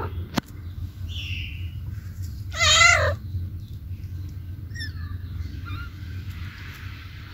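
A cat meows once, a wavering call of about half a second about two and a half seconds in, over a steady low background hum.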